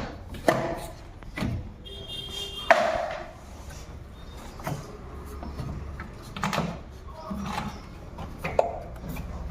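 A series of knocks and clatters from parts and tools being handled during servicing of a cassette air conditioner, over a steady low hum. There is a sharp knock about half a second in, and a brief high ringing tone is followed by the loudest knock a little under three seconds in.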